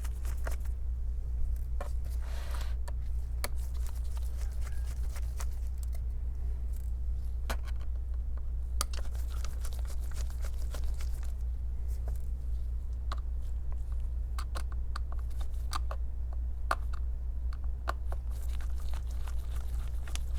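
A small Phillips screwdriver backing tiny screws out of a laptop's bottom cover: scattered light clicks and scrapes at uneven intervals, over a steady low hum.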